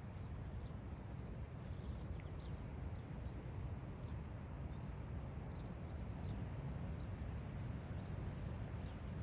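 Outdoor background: a low, uneven rumble with faint bird chirps now and then.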